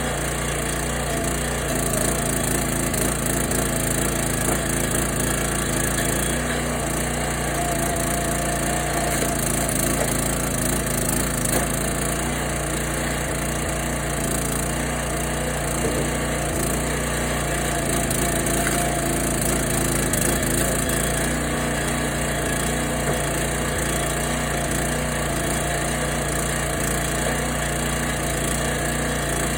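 Kohler 6.5 hp engine of a 22-ton log splitter running steadily, with wood splitting and splintering as logs are pushed through the wedge.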